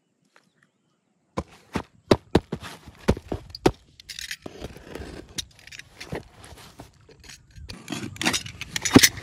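Handling noise: a quick run of sharp clicks and knocks about a second and a half in, then scraping and rustling, with louder knocks near the end.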